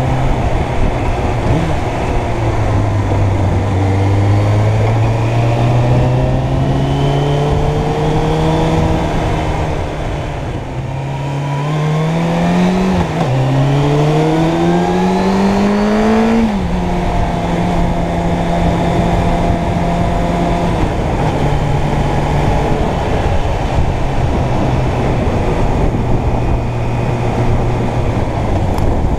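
Suzuki Bandit 600's inline-four engine under way: the revs climb slowly, ease off briefly, then climb twice more in quick succession, each climb cut short by a sharp drop at an upshift. After that the engine holds steady at cruising speed.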